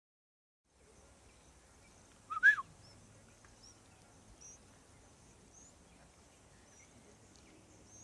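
Bulbul nestling begging: a short, loud two-note chirp about two and a half seconds in, then faint, thin, high chirps about once a second.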